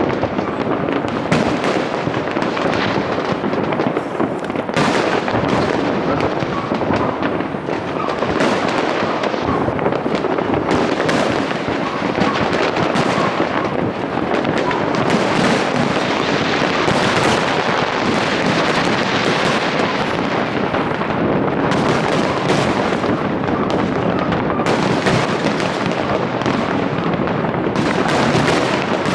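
A fireworks display in full barrage: a continuous run of overlapping bangs and crackles with no pause.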